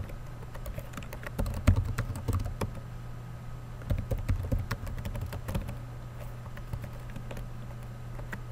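Computer keyboard being typed on: irregular bunches of keystroke clicks over a steady low hum.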